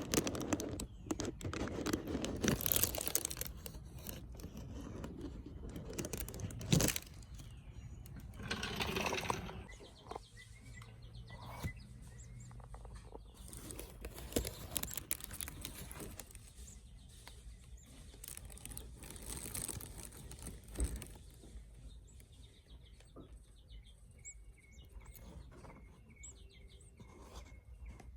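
Baby birds chirping in short repeated calls, a run of them clearer near the end. Over the first ten seconds there are louder rustles and knocks from handling.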